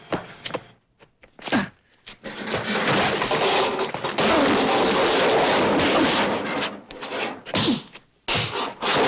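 Foley effects for a fight scene: a few sharp hits, then a long, dense noisy stretch, then more quick hits near the end.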